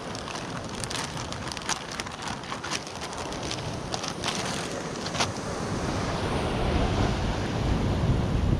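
Plastic packet of tortilla wraps crinkling in the hands, a run of sharp crackles over the first five seconds or so. Under it, steady wind buffeting the microphone and surf washing against the rocks.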